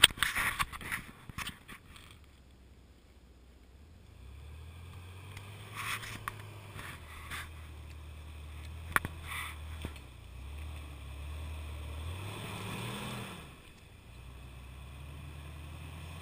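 Jeep Wrangler TJ engine running low and slow as it crawls up a rock step, revving up about twelve seconds in and then dropping back. Short scrapes and knocks come here and there as the tyres work over the rocks.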